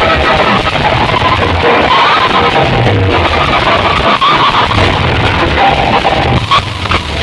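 Loud, distorted DJ dance music played through large sound-competition loudspeaker rigs, with a heavy repeating bass beat.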